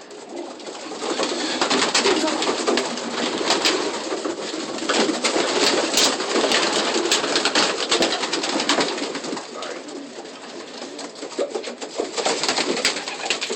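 Young racing pigeons in a loft, wings fluttering and clapping with many sharp flaps and scuffles, with cooing among them.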